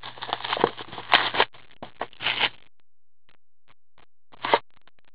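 Cardboard hockey-card box being opened and handled with cotton-gloved hands: about two and a half seconds of rustling and scraping, then a few light clicks and one more short rustle near the end.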